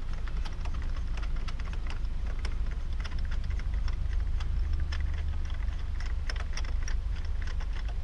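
Ratchet clicking in quick, irregular runs as a spark plug is unscrewed from the engine's cylinder head.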